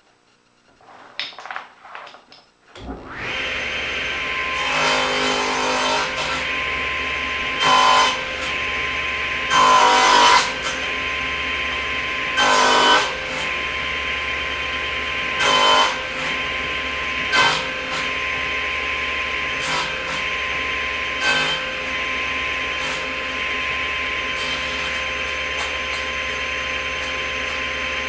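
Table saw switched on about three seconds in and running steadily. About eight louder bursts of the blade cutting wood ride on top of it, the later ones shorter.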